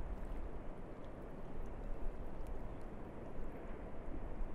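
Outdoor ambience of wind and water: a low rushing rumble that rises and falls in gusts, with a few faint ticks.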